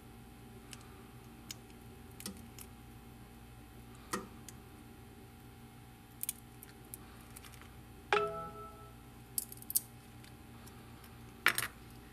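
Scattered light clicks and taps of a small metal tool against phone parts being handled. The tap about eight seconds in rings briefly, like struck metal. A faint steady hum runs underneath.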